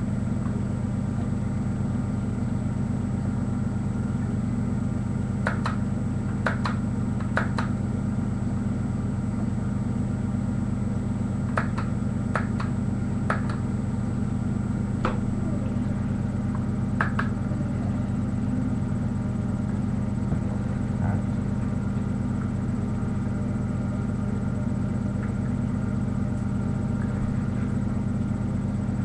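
A steady low hum, with several short sharp clicks in small groups through the first twenty seconds or so as the plastic LEGO-brick flashlight is handled.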